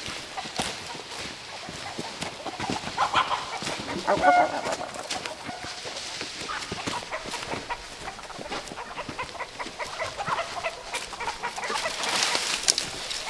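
Chickens clucking, with short calls strongest about three to four seconds in, over scattered light knocks and rustling.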